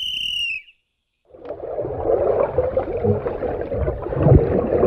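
A short, shrill whistle-like tone, then a moment of silence. About a second and a half in, the muffled sound of a camera held underwater in a swimming pool takes over: churning, bubbling water with dull low thumps, the high end cut off by the water.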